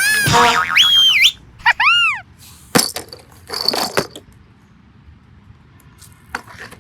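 Cartoon sound effects: quick wobbling, whistle-like tones that swoop up and down, then a couple of sharp clicks and a short rattly burst, after which the sound goes fairly quiet.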